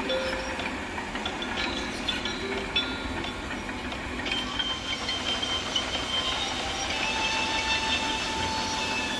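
Volvo excavators working, with steady machine noise, scattered metallic clanks and drawn-out high squeals of steel on steel. Partway through, the squeals hold longer.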